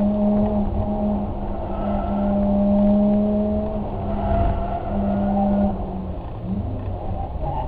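A car engine running at a steady pitch over road noise, dropping to a lower, steadier note about six seconds in.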